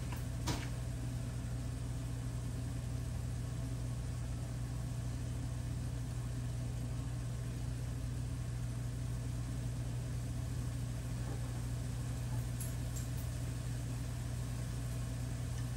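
A steady low mechanical hum, like a motor or fan running, with a single sharp click about half a second in.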